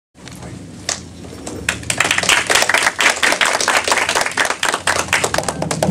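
Audience applauding: a few scattered claps at first, thickening into steady clapping from many hands about two seconds in.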